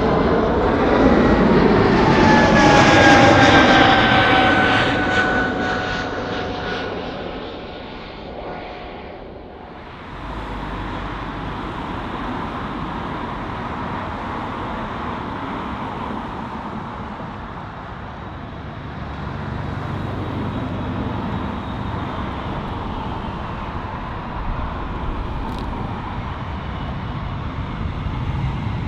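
Jet airliner passing close by, its engine noise building to a peak a few seconds in with a whine that falls in pitch as it goes past, then fading. About ten seconds in the sound changes abruptly to a steadier, quieter jet engine noise that swells slightly later on.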